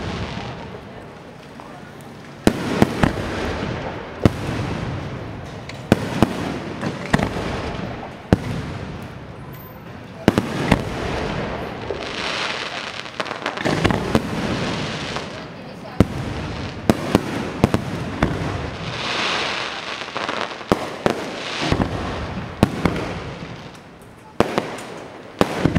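Aerial firework shells bursting overhead in quick, irregular succession: sharp bangs, each followed by a trailing crackle and hiss that swells and fades between the bursts.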